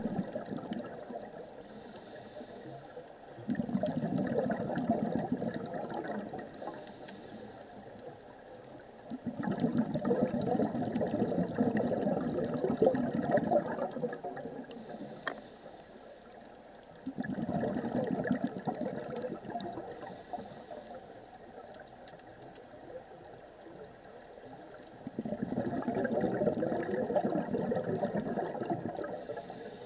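A scuba diver breathing through a regulator underwater: four long bursts of exhaled bubbles, each lasting a few seconds, with short hissing inhalations in the quieter gaps between them, repeating about every eight seconds.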